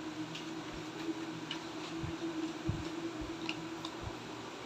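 A sheet of paper is handled in an Epson ink-tank printer's rear feed slot, giving a few faint ticks and soft knocks. A low steady hum stops near the end.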